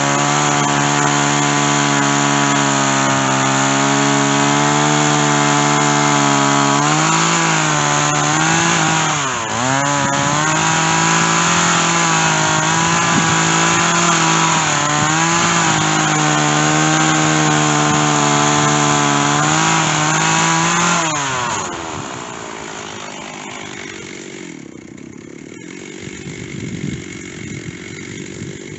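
Stihl chainsaw running at high revs, cutting through white oak with a dull chain. Its pitch sags briefly about nine seconds in as the saw loads up. About twenty-one seconds in it drops to a much quieter, lower running.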